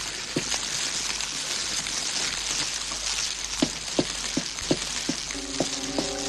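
Fire burning with a steady crackling hiss and a few sharp pops, most of them in the second half. A low, held musical chord comes in near the end.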